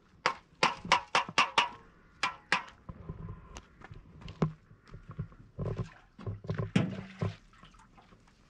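A quick run of about six sharp knocks, roughly three a second, then two more, and later a denser cluster of knocks and duller thuds.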